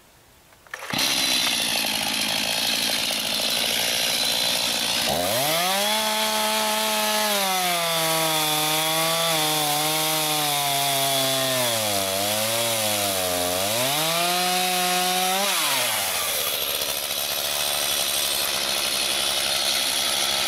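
Stihl MS 251 C two-stroke chainsaw opened up to full throttle about a second in, then from about five seconds the engine note drops and wavers under load as the freshly sharpened chain cuts through a log. Near sixteen seconds the cut finishes, the pitch jumps back up and the saw runs at high revs until it is let off at the end.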